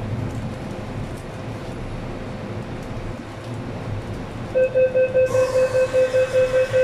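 MTR M-Train stationary at a platform with a steady low hum. About four and a half seconds in, the door-closing warning starts: a rapid series of high beeps, about four a second, with a hiss behind them from about five seconds in, as the doors get ready to shut.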